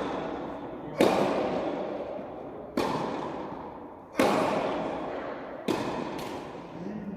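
Tennis ball in a rally, sharp pops of racket strikes and court bounces about every one and a half seconds, with a quick pair near the end. Each pop rings on in the echoing indoor tennis hall.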